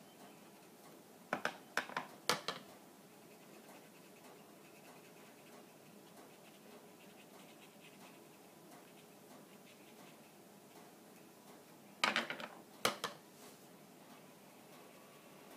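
Aqua painter water brush working on watercolour card, with faint scratchy brushing and two short runs of light taps: three or four about a second and a half in, and three more about twelve seconds in.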